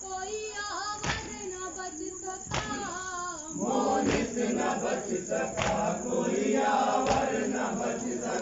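Men chanting a Muharram noha: a lead voice, joined by a fuller group chorus about three and a half seconds in. A sharp slap, typical of matam (chest-beating), keeps the beat about every second and a half.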